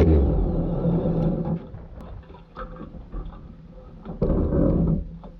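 Motorcycle engine running steadily, then dropping away about a second and a half in, with a short loud burst of engine again near the end.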